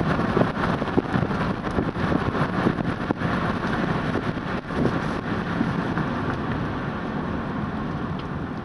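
Car driving along a country road, heard from inside the cabin: a steady rumble of road and engine noise, with a few light knocks in the first few seconds.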